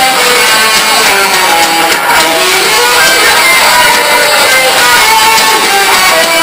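Live band playing loud, with electric guitars strumming over drums.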